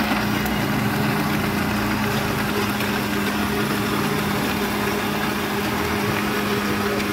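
Electric countertop blender running steadily, blending mango into juice: an even motor hum with a whir over it.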